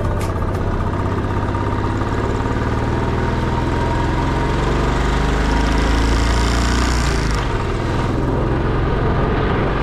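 Motorcycle engine running steadily while riding, its note dropping about seven seconds in.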